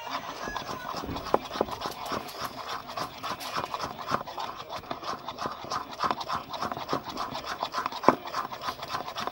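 A spoon stirring glue and colouring in a bowl, with quick, irregular scraping strokes against the bowl and a few sharper clicks.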